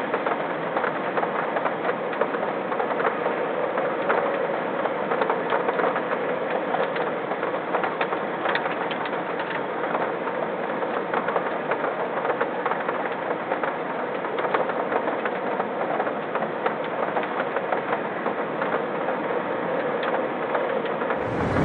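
Steady rain, a dense even hiss with many small drop hits close to the microphone.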